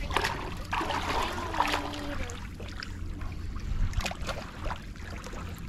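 Shallow seawater splashing and sloshing as a gutted fish is rinsed by hand, with a few sharp splashes about four seconds in. A steady low rumble of wind on the microphone runs underneath.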